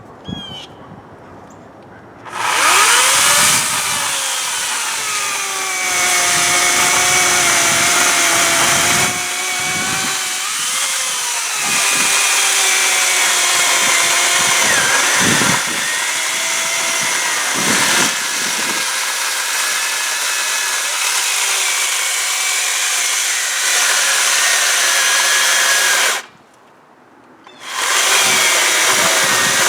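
Makita UC3551A corded electric chainsaw crosscutting a maple log. It starts about two seconds in, and its motor whine wavers in pitch as the chain loads up in the wood. It stops briefly near the end and then starts cutting again.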